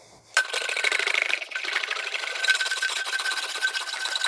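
Sheet-metal roof panel being rolled back and forth through an English wheel: a steady metallic rolling hiss with a thin steady ring, starting about half a second in. The wheeling stretches the panel to raise a radius that sits too low.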